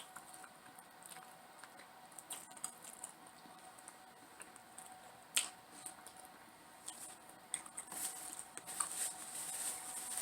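Close-up mouth eating sounds: soft chewing with scattered small mouth clicks. One sharper click comes about five seconds in, and the clicks grow more frequent near the end.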